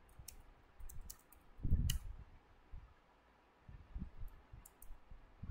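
Computer keyboard keys clicking as code is typed, in short irregular runs of keystrokes, with a dull low thump at about two seconds.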